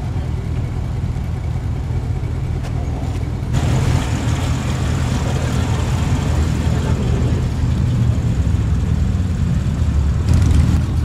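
Gemballa Mistrale's (Porsche Panamera GTS-based) 4.8-litre V8 idling with a steady low exhaust rumble. About three and a half seconds in, a brighter background hiss joins it.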